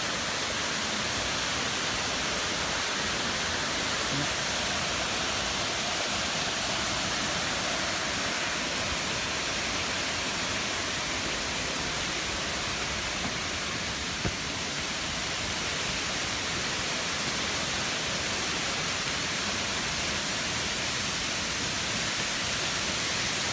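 Natural waterfall rushing: a steady, even roar of falling water.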